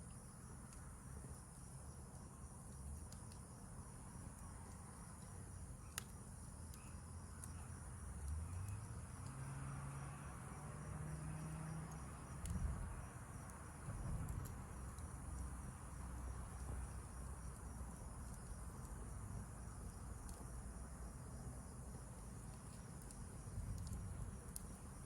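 Steady high-pitched chorus of crickets and other night insects, with a few sharp crackles from a wood campfire and a low rumble underneath, including a couple of dull thumps about halfway through.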